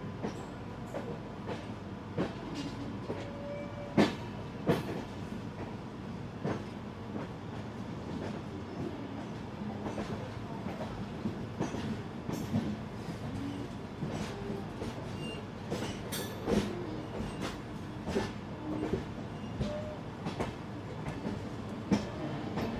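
Mangala Express passenger coach running along the track: a steady rumble broken by irregular clanks and clicks of the wheels over rail joints, with a few short faint squeaks.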